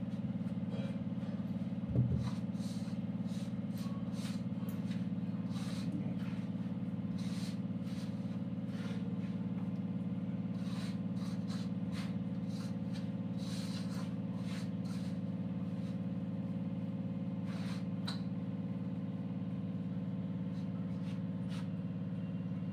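Steady hum of a household electric flour mill (atta chakki) running. Soft irregular clicks and pats come from hands kneading dough in a steel bowl, with one low thump about two seconds in.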